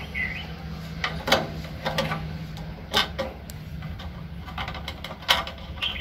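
Screwdriver backing out a small metal screw from the housing of a gas geyser's thermostat, with scraping and a few sharp clicks, over a steady low hum.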